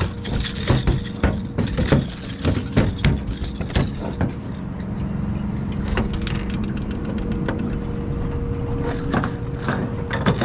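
A motor running steadily at an even pitch, with a run of clicks and knocks over the first few seconds.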